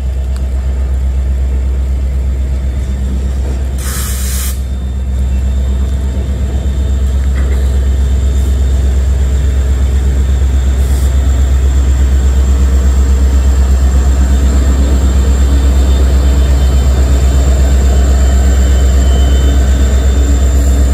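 Norfolk Southern SD70ACe diesel locomotive working in the middle of a freight train under throttle, its engine running with a deep steady drone that grows louder as it comes past, over the rumble of autorack cars rolling by. A short burst of hiss about four seconds in.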